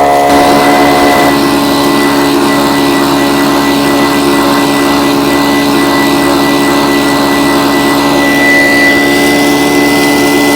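Engine-driven vacuum running steadily while cleaning out bedrock cracks, a constant motor drone with a thin high whine; its tone shifts slightly about a second in.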